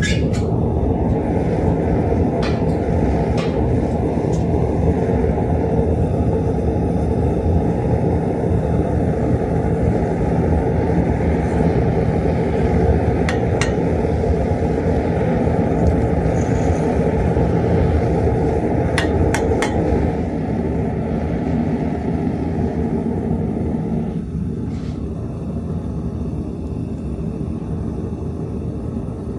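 Gas burner of a metal-melting furnace running steadily, with a few sharp metal clinks as the steel lid and crucible tongs are handled. The burner sound eases a little about twenty seconds in.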